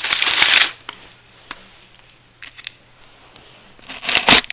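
Cardboard shipping box being handled and opened: a loud tearing, scraping noise for under a second at the start, a few faint clicks and rustles, then more cardboard rustling near the end.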